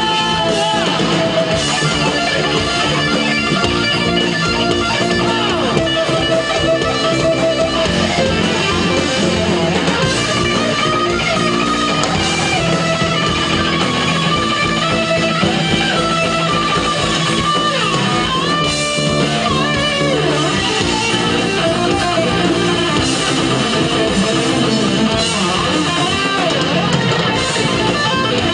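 Rock band playing live, guitars to the fore, steady and loud throughout.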